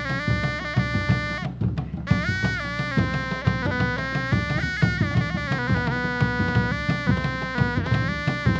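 A reed wind instrument plays a sliding, ornamented melody with a short break about a second and a half in, over the quick, steady beating of dogdog hand drums in Sundanese reog music.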